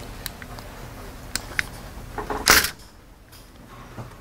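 Small metallic clicks as the Geissele trigger's spring-loaded hammer is pressed down into the AR-15 lower receiver to line up its pinhole, with a brief, louder scraping rustle of handling about two and a half seconds in.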